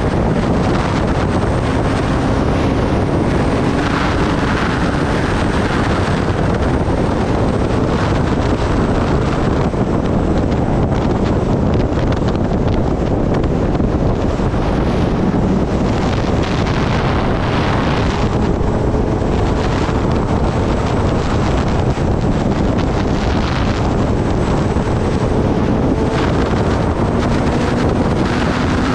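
Heavy wind rush on the microphone over the Kawasaki Ninja ZX-10R's inline-four engine cruising at highway speed, its pitch drifting slowly up and down.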